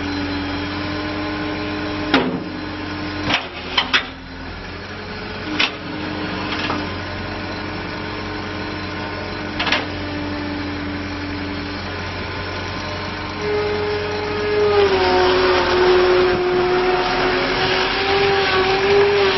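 John Deere 315CT skid steer's diesel engine running steadily, with several sharp clunks in the first ten seconds, then revving up to a higher, louder speed about three-quarters of the way through.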